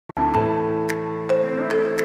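Calm background music that starts almost at once: sustained chords with light percussive ticks about two to three times a second.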